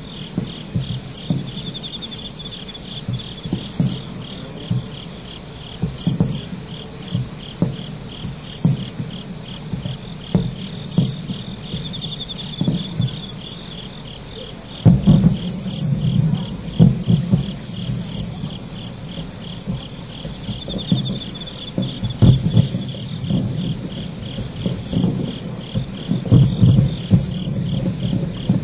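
Night insects chirping without a break: a steady high trill, a fast pulsed chirp and a short buzz repeating about every second and a half. Under them, distant aerial firework shells burst as dull thumps and rumbles, coming thicker and louder from about halfway.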